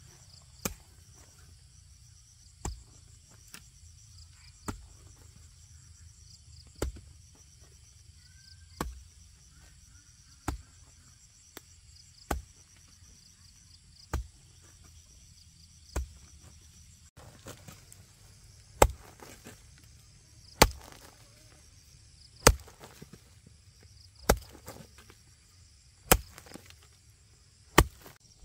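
Sharp knocks of a tool striking, one about every two seconds and louder in the second half, over a steady chirring of insects.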